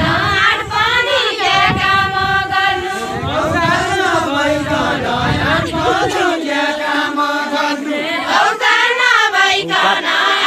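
A group of women singing a Nepali deuda folk song together in unison, unaccompanied. The melody alternates between wavering phrases and long held notes.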